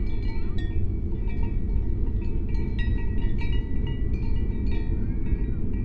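Light, irregular chiming pings, like small bells tinkling, over a steady low rumble.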